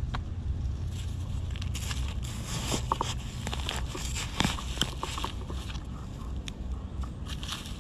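Dry leaf litter rustling and crackling under a gloved hand searching the forest floor for termite mushrooms, busiest from about two seconds in to past the middle and again near the end, over a low steady rumble.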